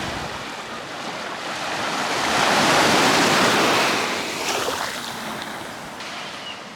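Sea waves breaking and washing on a beach, one surge swelling to its loudest about three seconds in and then draining away.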